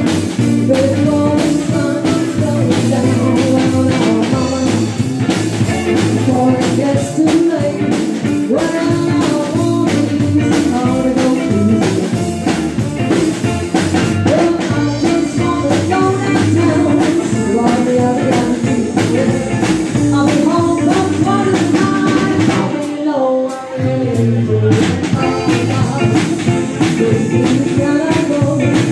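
Live rhythm-and-blues band playing: a woman singing over saxophone, electric guitar and drum kit with a steady beat. The band drops out for a moment about four-fifths of the way through, then comes back in.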